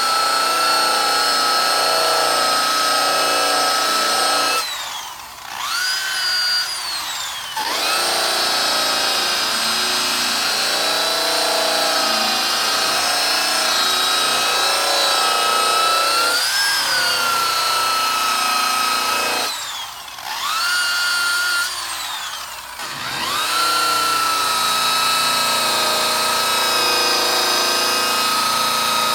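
A handheld power tool's motor whining steadily as it spins a cloth buffing wheel loaded with cutting compound against an oxidized plastic headlight lens. Twice, about five seconds in and again about twenty seconds in, the whine falls away as the tool slows and then climbs back up to speed.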